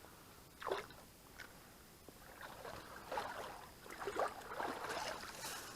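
Creek water splashing and sloshing in irregular bursts: a short splash about a second in, then a longer run of sloshing toward the end.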